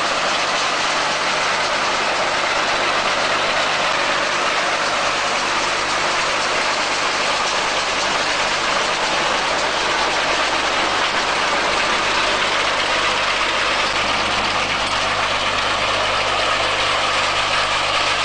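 Tractor-drawn round baler running at work close by: a loud, steady, even mechanical noise with no changes.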